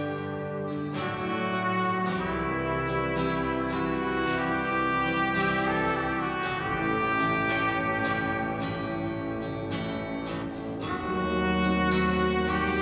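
Music: brass instruments playing a slow tune with plucked notes beneath.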